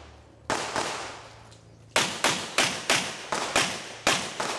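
Handgun shots from a practical shooting stage: a single shot about half a second in, then a rapid string of about eight shots, each trailing off in echo.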